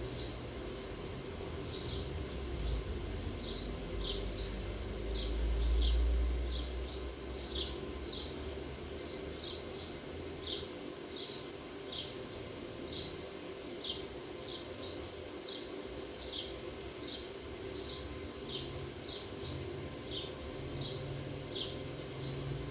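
A small bird chirping over and over, short falling chirps about one or two a second, over a steady low background hum. A low rumble swells briefly about five seconds in.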